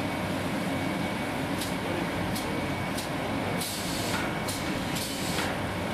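Machinery of a gasification plant running with a steady hum and a faint high tone, broken by short hisses several times, the longest about four seconds in and another near the end.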